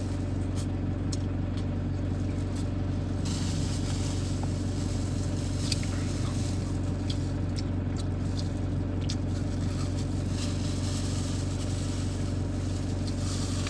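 Steady low hum of a van running, heard inside the cabin, with small clicks and rustles of eating by hand in a plastic glove and chewing.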